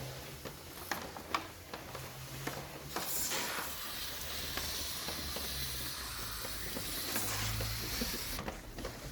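Sprayer hissing steadily as liquid is sprayed onto an air conditioner's indoor unit during cleaning, for about five seconds and then cut off abruptly. Before it come scattered light ticks and drips.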